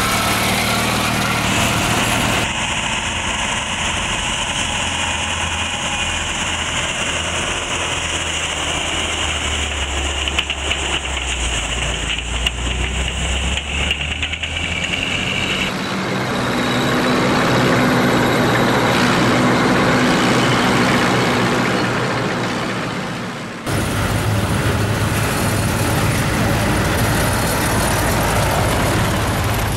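Engines of WWII-era German military vehicles running and driving past: a motorcycle with sidecar, then half-tracks, in several clips joined by abrupt cuts. One pass swells louder about two-thirds of the way through and then fades before the next cut.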